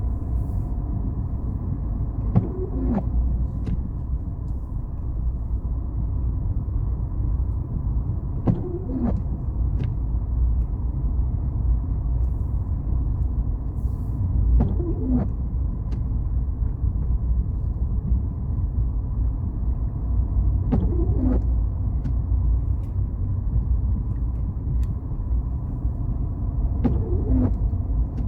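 Steady low rumble of a car driving, heard from inside the cabin. Windscreen wipers sweep across and back about every six seconds, each pass a short rising-and-falling swish with a click at either end.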